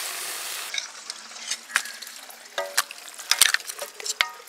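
Mutton bone fry sizzling as it is stirred in the pan, cut off abruptly under a second in. A metal ladle then scrapes and clinks against the pan as the cooked bones are scooped out, several clinks ringing briefly.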